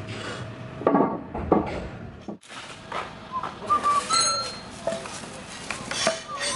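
Two sharp knocks as heavy wooden planks are handled. Then birds chirping, with a plastic bag rustling.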